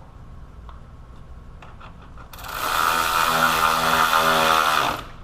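Electric power tool motor run in one burst of about two and a half seconds: it spins up quickly about two seconds in, holds a steady pitch, and stops sharply.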